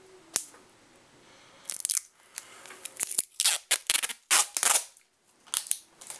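Clear packing tape being pulled off its roll in a series of short rips. There is a sharp click about half a second in.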